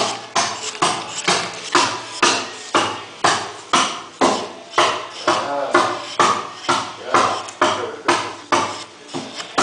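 Steady knocks of a wooden-handled carving gouge being driven into red cedar, about two a second, as the eye of a totem-pole figure is rounded off.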